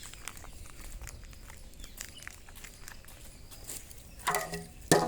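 Puppies feeding on milk and moving about: scattered soft clicks and light patter. Near the end a louder pitched sound comes in twice.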